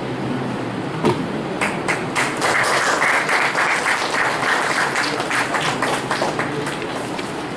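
A small group of people applauding: scattered claps start about a second in, build to full applause in the middle and thin out toward the end.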